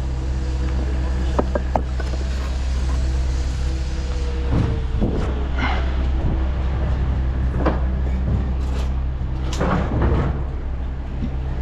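A steady low engine-like hum, with a few sharp clicks about a second and a half in and several short scraping or rustling noises later.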